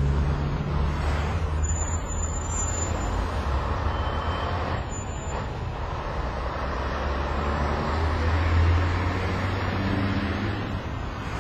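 Night city street traffic: a steady low rumble of car engines and road noise from passing vehicles, with a few brief faint high whistles about two and four to five seconds in.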